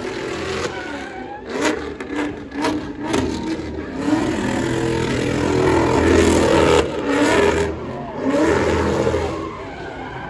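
Car engine revving hard again and again, its pitch rising and falling, as the car spins donuts with its rear tyres spinning on the asphalt. Several sharp cracks come in the first few seconds.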